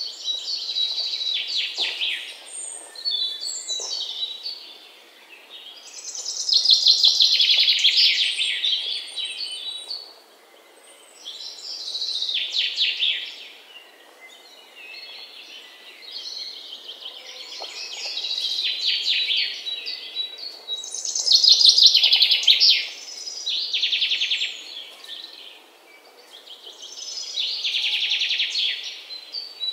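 Birds singing, with bursts of rapid high chirps and trills a second or two long, recurring every few seconds over a quieter bed of chirping.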